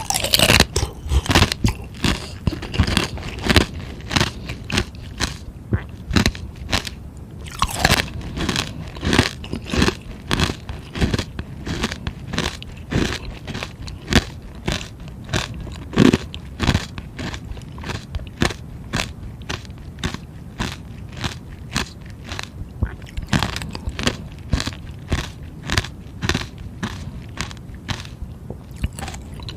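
Close-miked crunching of frozen ice balls being bitten and chewed, a steady run of sharp crunches about two a second.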